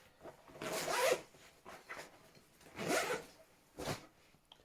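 A bag's main-compartment zipper being pulled open in a few strokes, each a short noisy rasp, about a second in, about three seconds in and a brief one near the end.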